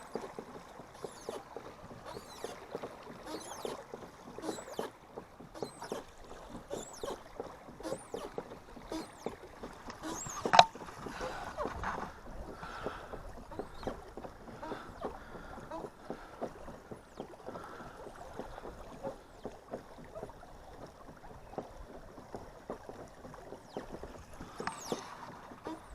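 Kayak on a river: water splashing lightly against a Pelican pedal-drive kayak, with frequent small ticks and knocks and one sharp knock about ten and a half seconds in.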